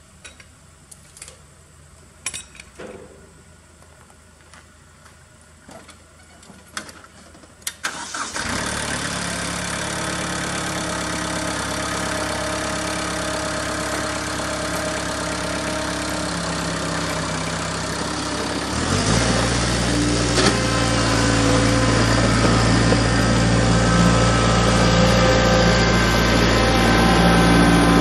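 A few wooden knocks, then a Kubota compact diesel tractor's engine starts about eight seconds in and runs steadily. About eleven seconds later it turns louder and deeper and stays that way.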